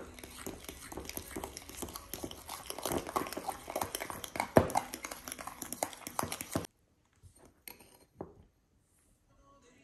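A metal fork stirring a thick egg-yolk mixture in a small glass bowl: quick wet scraping and clicks of the fork against the glass, which cut off abruptly about two-thirds of the way in, followed by a few faint taps.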